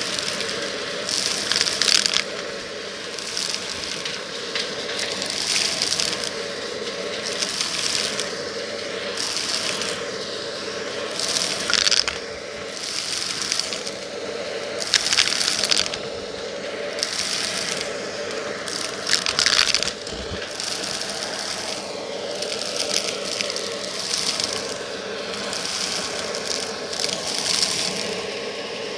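Cordless stick vacuum running steadily as its nozzle sucks up small shells, beads, sequins and coins. The debris rattles and crunches up the wand in repeated surges, about one every one to two seconds.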